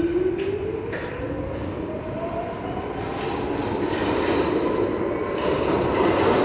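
New York City subway train pulling out of the station and speeding up. Its motors give a whine that rises steadily in pitch, with a few sharp clicks of the wheels over rail joints near the start and a wheel rumble that grows louder toward the end.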